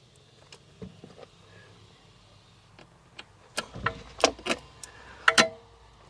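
Light scattered clicks, then a run of sharp metallic clicks and knocks in the second half, from screws and a screwdriver being handled while the air compressor's base plate is screwed down.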